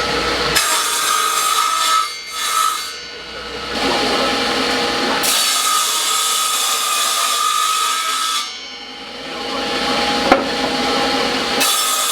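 A power tool working wood in several runs of a few seconds each, with a steady motor whine over rough cutting or sanding noise. It eases off twice between runs, and there is a sharp click near the end.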